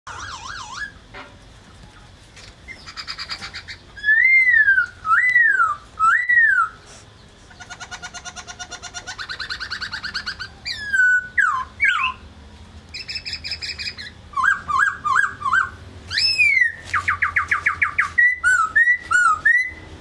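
Black-throated laughingthrush singing: loud, clear whistled phrases that rise and fall, mixed with fast rattling trills, in bursts separated by short pauses.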